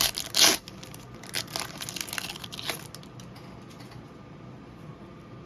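Foil trading-card pack wrapper crinkling and tearing as it is handled, a run of sharp crackles over the first three seconds, loudest about half a second in.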